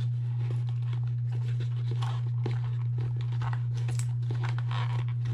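Hands working a dash cam out of its snug cardboard box insert: packaging scraping, rustling and clicking in short, irregular bits. A steady low hum sits underneath throughout and is the loudest thing.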